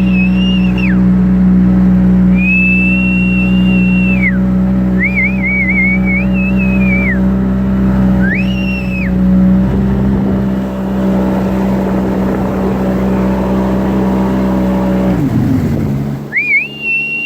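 An engine runs steadily at constant speed, then falls in pitch as it throttles down near the end. A high whistling tone rises, holds and falls away several times over it.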